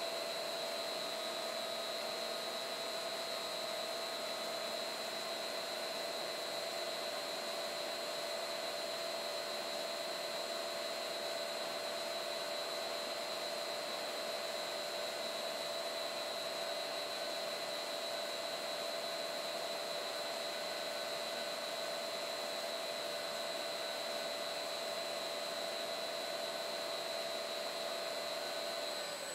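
Industrial powder blenders running: a steady machine hum with a constant whine and a hiss.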